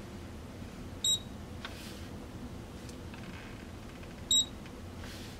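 Handheld inkjet stamp printer (Colop e-mark create) giving two short, high electronic beeps about three seconds apart. The first beep signals that it is ready to print, and the second that the print is finished.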